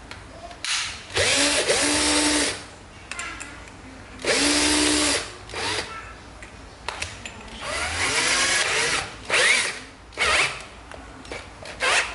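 Ryobi 12 V cordless drill running unloaded in several short bursts, each spinning up, holding a steady whine and winding down, while a drill bit is fitted in its chuck.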